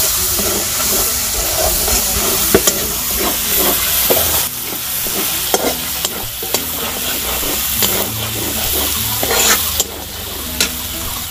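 Food sizzling as it fries in a pan, stirred with a spatula that scrapes and knocks against the pan at irregular intervals.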